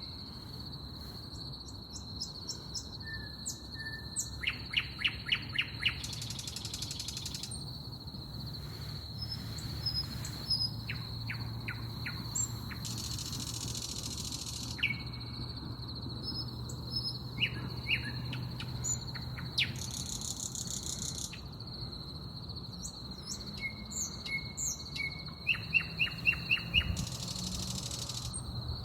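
Songbirds in a dawn chorus at the riverside, calling in repeated series of short chirps and several buzzy trills, over a steady high-pitched whine and a faint low hum.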